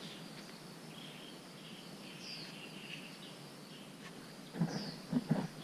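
Birds chirping over a steady outdoor background hiss, with a few low thumps and rustles near the end.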